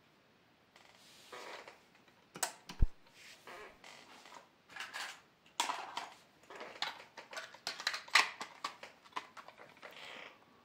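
A Maxell UR 60 cassette and its clear plastic case being handled: irregular plastic clicks, clatters and short rustles, with a sharp knock about three seconds in.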